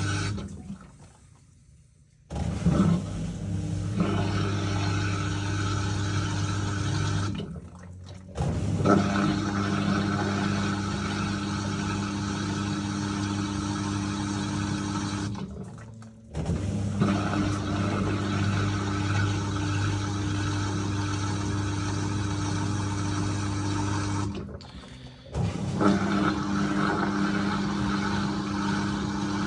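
LG Turbodrum direct-drive top-loading washer in its second interim spin: a steady motor-and-pump hum with water rushing, running in spells of several seconds. It cuts out briefly four times and starts again abruptly each time, and the pitch of the hum shifts between spells.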